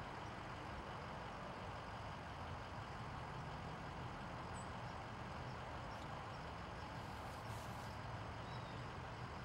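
Steady low rumble of an idling vehicle engine under even outdoor background noise.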